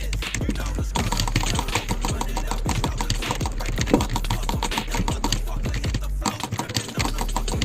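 Dense, rapid, irregular clicking, like fast typing or button clicking, over a steady low music bed.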